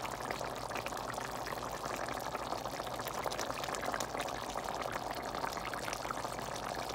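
Pot roast broth with beef and vegetables bubbling steadily in the pot, a continuous hiss of many small bubbles popping.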